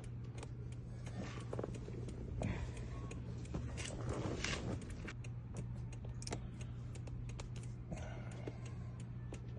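Scattered light clicks and handling noises over a steady low hum.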